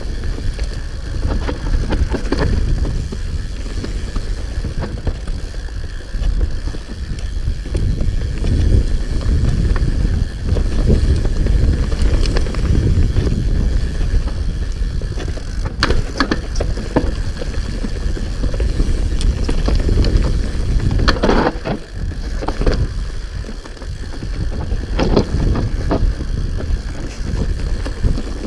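Hope HB160 mountain bike ridden fast down a dirt and rock trail: a steady heavy rumble of wind on the microphone and tyres on the ground, with sharp rattles and knocks as the bike hits rocks. The knocks are loudest a little past halfway and through the last third.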